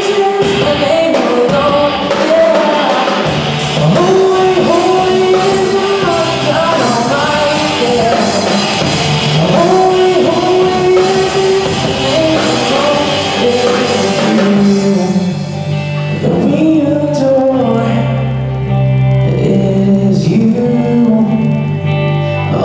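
Amateur rock band playing a worship song live: a young male lead singer over electric guitars and drums. About two-thirds of the way through, the bright top end drops away and the low notes get heavier.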